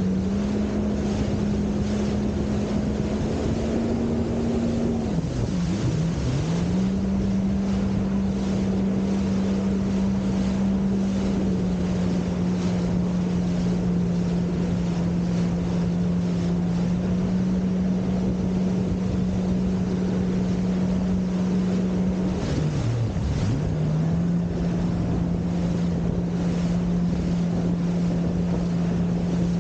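Motorboat engine running at speed with a steady hum, its pitch dipping sharply and recovering twice, about five seconds in and again near 23 seconds, over wind on the microphone and rushing water from the wake.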